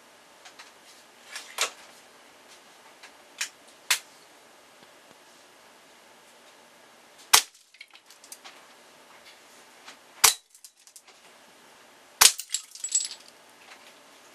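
Air-gun shots striking plastic and ceramic Halloween ornaments: six sharp cracks a few seconds apart, the loudest three near the end. The last is followed by a short clatter of breaking pieces.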